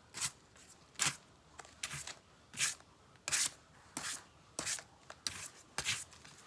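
Paintbrushes dabbing and brushing white paint onto cardboard: about a dozen short brushing strokes, one or two a second.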